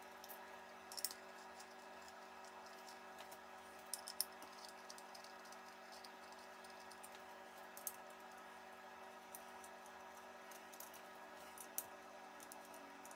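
A handful of faint, sharp clicks a few seconds apart over near silence: an Allen key and fingers working at the 4 mm Allen screws that hold the 6.5-inch mid-bass driver to the speaker's front baffle. A faint steady hum lies underneath.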